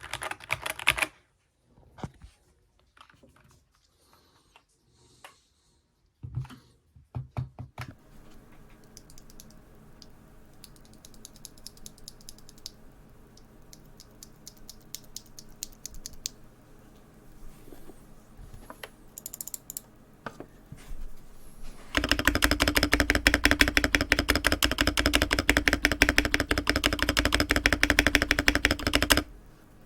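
Typing on a Keychron K6 Pro mechanical keyboard. A short burst of typing opens, followed by a long quiet stretch with only scattered key clicks. About three-quarters of the way through, fast continuous typing starts on the modded board.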